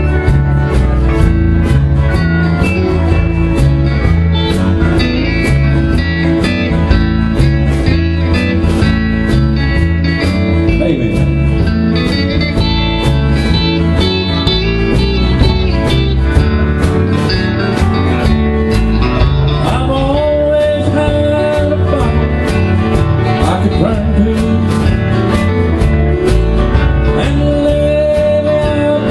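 Live country band playing: steel guitar, electric and acoustic guitars over a steady bass beat.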